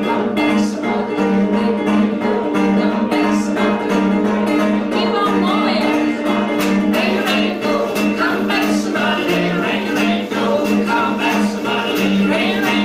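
Live acoustic blues band: a small-bodied guitar strummed along with a woman's singing, over a steady run of sharp percussive clicks from hand percussion.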